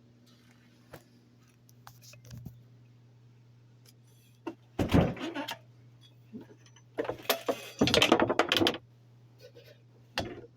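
Hard objects being handled: scattered clicks, then two bursts of rattling and knocking about five seconds in and from about seven to nine seconds, and a short knock near the end, over a faint steady hum.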